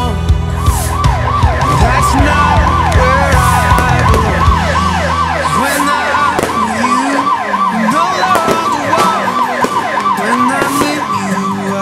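A fast electronic siren-like wail, each sweep dropping in pitch, repeating about three times a second. A deep steady bass hum runs under it and stops about seven seconds in.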